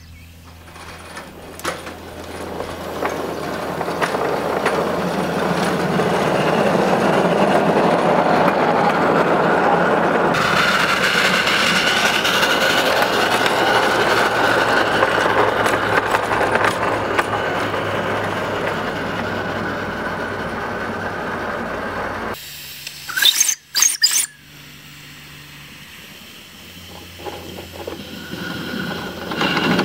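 Maxitrak Alice miniature live-steam quarry locomotive running along the track: a steady rushing noise of steam and wheels on the rails, with a high squeal. About two-thirds through, the noise drops away after a couple of sharp knocks, then builds again near the end.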